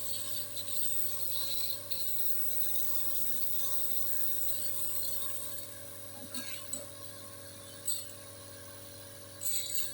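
Nebulizer compressor running with a steady hum and hiss. The hiss eases a little about halfway through, and there are a couple of short knocks near the end.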